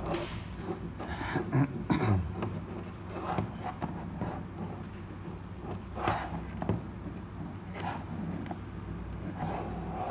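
Scattered knocks, rustles and clicks of a handheld camera being moved and handled, over a steady low hum.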